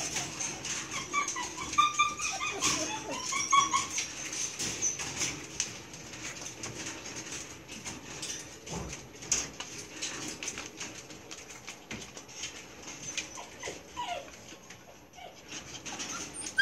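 Young Belgian Malinois puppies whining and whimpering in high, wavering cries, most of them in the first few seconds and a few more near the end. There are frequent light clicks throughout.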